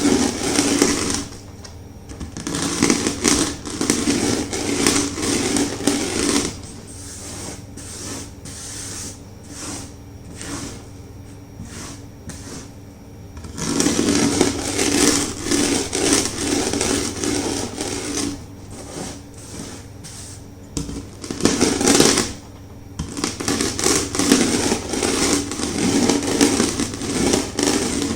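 Chunks of gym chalk crunching and crumbling under a rolling pin: stretches of dense crackling as the pin rolls over them, with quieter spells between, the longest lull about halfway through.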